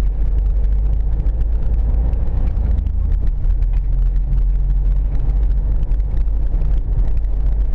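Steady low rumble of a car's engine and tyres cruising at an even speed.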